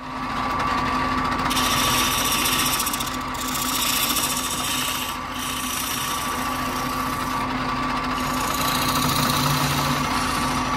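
Wood lathe running with a steady motor hum while a gouge cuts into the end grain of the spinning wooden blank, hollowing out its bore with a continuous rasping scrape. The scrape eases off briefly a couple of times.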